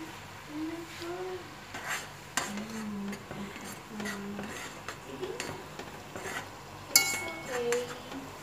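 A spoon stirring tomato sauce in a coated cooking pot, scraping and clinking against its sides, with one louder, ringing clink on the pot about seven seconds in. Onions sizzle faintly in a frying pan.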